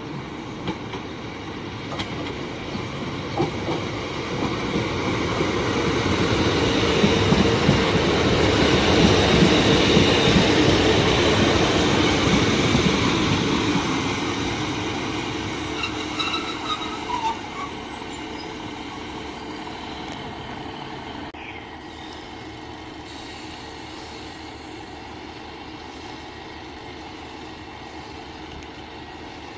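Class 150 Sprinter diesel multiple unit running along the platform road: the rumble of its underfloor diesel engines and wheels on the rails grows as it nears, is loudest about ten seconds in, then fades as it moves away.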